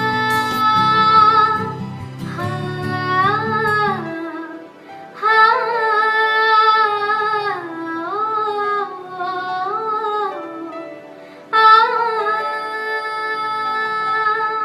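A woman singing a slow Hindi song in long, drawn-out phrases with short breaks between them, over a low accompaniment that is louder in the first four seconds and faint after.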